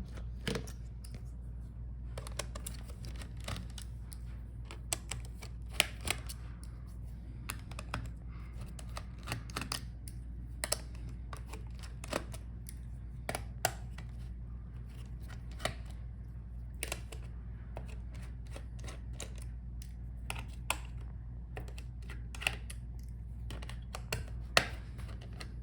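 Irregular small clicks and ticks of a screwdriver working out the small screws of a laptop's plastic motherboard bracket, with the screws and plastic parts being handled, over a steady low hum.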